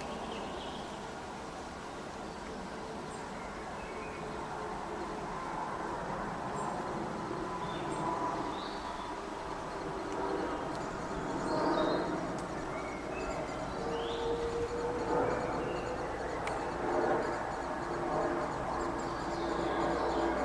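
Scattered short bird chirps over a steady low hum and a rushing background noise.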